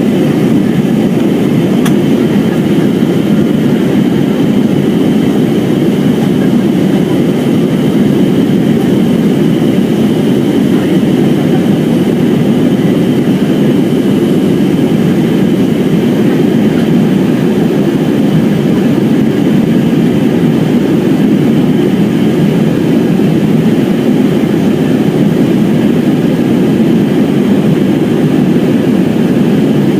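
Steady noise of jet engines and rushing air heard inside the cabin of an Airbus A320 climbing after takeoff, an even low noise that holds level throughout.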